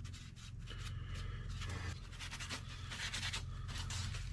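Paper napkin rubbing gel stain onto a wooden hand plane knob: soft irregular scratchy wiping and paper rustling, over a steady low hum.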